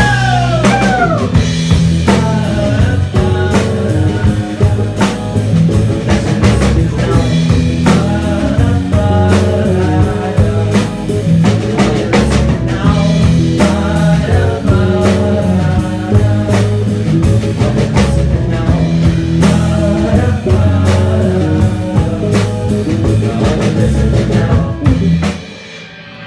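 Rock band playing live: drum kit, electric guitar, bass and keyboard in an instrumental passage, ending about a second before the close.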